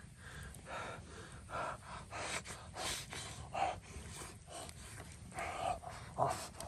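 A person eating a miso katsu rice bowl with chopsticks, close to the microphone: a string of short chewing, biting and breathing sounds at mouth level, roughly one or two a second.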